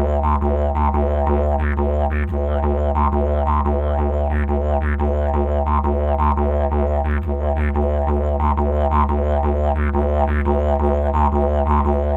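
Didgeridoo music: a steady low drone with a rhythmic, pulsing pattern in its upper tones.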